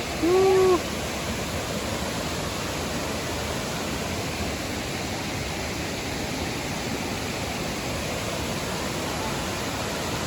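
Steady rushing of falling water from the Lopopu waterfall and its river, an even hiss without rhythm. A brief pitched vocal sound cuts in right at the start and is the loudest thing.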